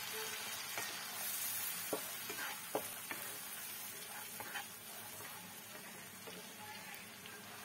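Ginger, garlic, onion and green chilli paste sizzling in butter in a kadai, being sautéed until its raw smell goes. A spatula scrapes and taps against the pan a few times as it is stirred, mostly in the first half.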